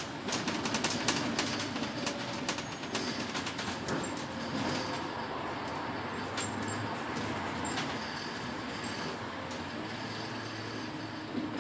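Cabin noise on board a moving double-decker bus: a steady run of engine and road noise with the body and fittings rattling and clicking, the rattles thickest in the first couple of seconds.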